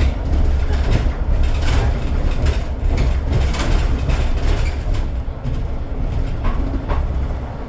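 Inside a moving city bus: steady low rumble of the engine and road, with frequent short rattles and knocks from the body and fittings.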